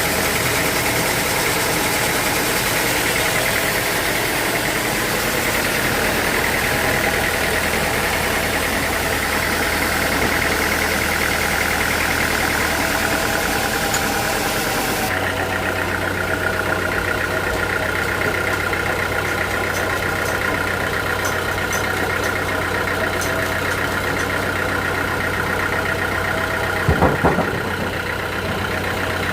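Sawmill machinery running steadily with a constant mechanical drone. The sound changes abruptly about halfway through, and a few knocks come near the end.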